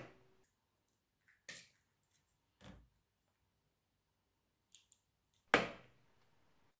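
Eggs being cracked against the rim of a mixing bowl and broken open: a few soft taps and shell cracks, with the sharpest crack about five and a half seconds in.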